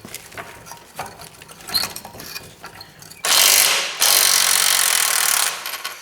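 Ratchet wrench turning a fastener on a car chassis. Scattered clicks of the tool being handled, then two loud runs of fast ratcheting, one about three seconds in and a longer one lasting about a second and a half just after.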